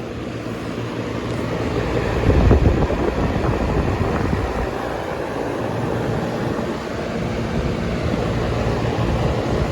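Goodman outdoor air-conditioning condenser units running: a steady rush of fan air over a low hum, with a gust of wind hitting the microphone about two and a half seconds in.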